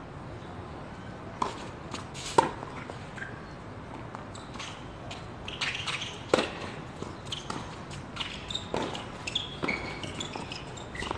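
Tennis ball being hit back and forth in a doubles rally on a hard court: sharp single pops of racket strikes and ball bounces a second or more apart, the loudest about two and a half seconds in.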